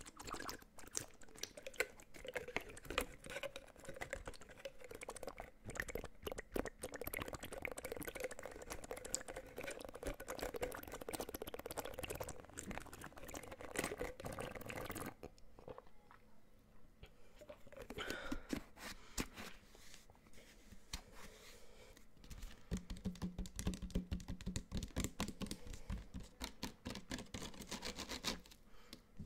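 Fingers tapping fast on a plastic Powerade bottle held close to the microphone, a dense run of quick clicks. The taps stop briefly about halfway, then come back denser and quicker in the last several seconds.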